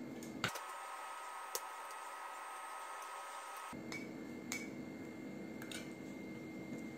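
Faint room tone: a steady low background hum with a few light clicks.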